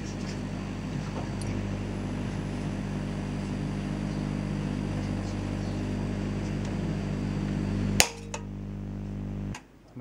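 Microwave-oven transformer and magnetron humming steadily at mains frequency while plasma burns inside an incandescent bulb. About eight seconds in there is a single sharp crack as the bulb's glass bursts, and the hum cuts off about a second and a half later.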